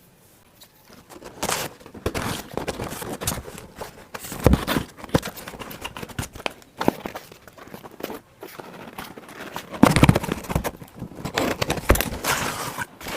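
Hands opening a new smartphone's retail box: irregular rustling, crinkling and tearing of the packaging, with sharper knocks about four and a half and ten seconds in.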